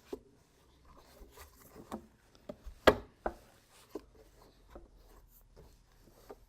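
Plastic support tabs of a Hobie H-Crate tackle crate clicking into place as they are pushed in from inside, with handling knocks and rubbing on the crate. A scattering of sharp clicks, the loudest about three seconds in.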